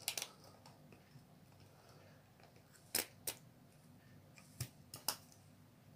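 A few sharp clicks and taps of a small object being handled: one at the start, a pair about three seconds in and another pair near the end, over faint room tone.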